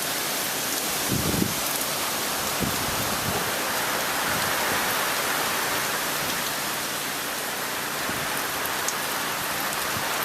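Steady rain falling in a thunderstorm, an even hiss with a few brief low knocks about a second in and again near three seconds.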